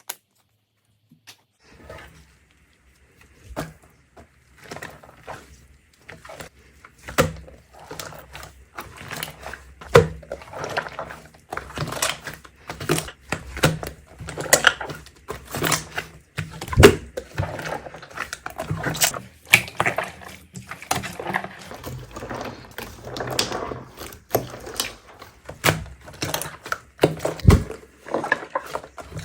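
Slime being squished and played with by hand: a run of irregular clicks and pops, starting about two seconds in.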